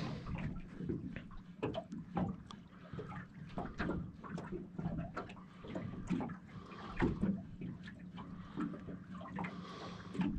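Small waves lapping and slapping against the hull of a small boat, a run of irregular light splashes over a steady low hum.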